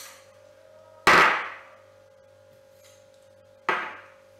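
Two sharp metallic clacks about two and a half seconds apart, the first the louder, each with a short ring. They come from snap caps being taken out of a side-by-side shotgun and set down on a table.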